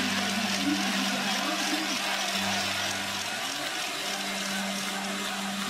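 Spectator crowd at a biathlon course: a steady wash of crowd noise, with a low steady tone held through most of it that breaks off briefly around the middle.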